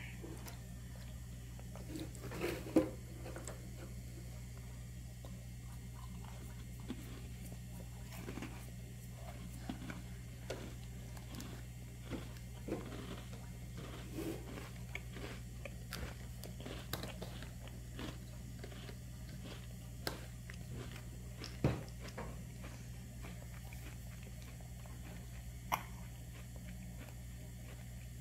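A baby gumming and sucking on a baby snack stick: soft wet mouth smacks, sucks and small crunches, scattered irregularly, with a few sharper clicks, over a low steady hum.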